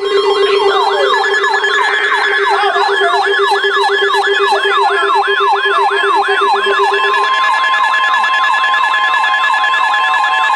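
Several electronic sirens sounding together: fast yelping sweeps, about three a second, over steady tones. One low steady tone stops about seven seconds in.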